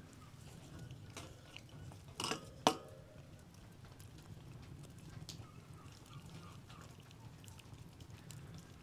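Wooden spoon stirring a thick cream-and-mushroom sauce in a metal frying pan over a wood fire, with faint scattered crackles. A short scrape and then one sharp knock, the loudest sound, come about two and a half seconds in as the spoon meets the pan.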